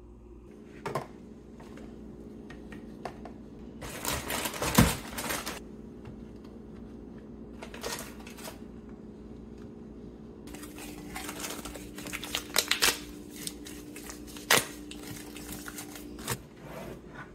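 Groceries being unpacked by hand on a kitchen countertop: crinkling plastic bags and wrappers, with scattered clicks and knocks as items are set down. There is a loud rustle about four seconds in and denser crinkling in the second half, over a low steady hum.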